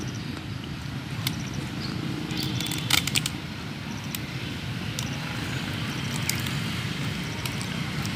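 Clear adhesive tape being pulled off the roll and wound around a wooden stick: scattered sharp clicks and short crackles, the loudest cluster about three seconds in, over a steady low rumble.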